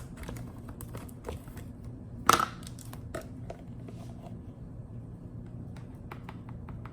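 Light clicks and taps of a spice container and measuring spoon as ground black pepper is scooped out, with one brief louder rustle or scrape a little over two seconds in. A steady low hum runs underneath.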